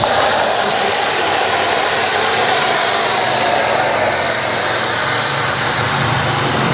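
Pressure washer spraying a steady jet of water, a loud continuous hiss with a faint whistle on top, switched on suddenly at the start.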